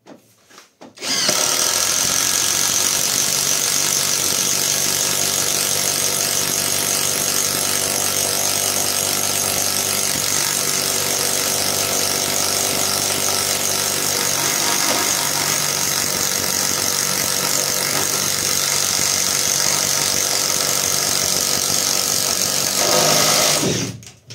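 Catpower 4226 cordless impact wrench running steadily under load, boring a 30 mm self-feed bit into an old wooden beam. It starts about a second in and stops just before the end.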